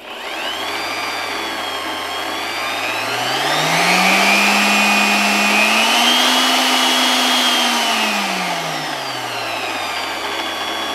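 AOCKE AX16RE magnetic drill's electric motor starting and running with no load, its whine rising in pitch in two steps as the speed dial is turned up, then falling back down about eight seconds in. At the higher settings it is quite loud.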